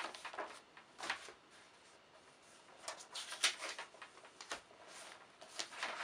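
Manila file folders rustling and sliding against each other and into a leather envelope clutch, in a few faint, short bursts of paper scraping with quiet gaps between.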